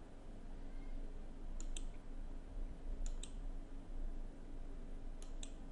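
Computer mouse clicking three times while advancing a slideshow, each time two quick clicks close together, over a low steady hum of room tone.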